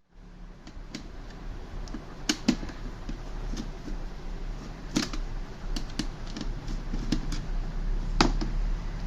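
Scattered clicks and taps of hand work on a plastic printer duplex tray being opened, with a few sharper snaps about two, five and eight seconds in, over a low steady hum.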